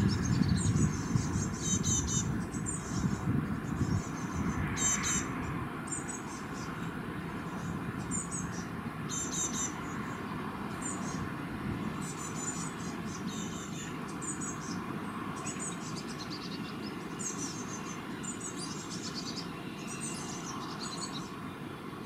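Small birds chirping in short, high-pitched repeated phrases, about one every second or two. Underneath is a low traffic rumble that is louder for the first few seconds and then settles.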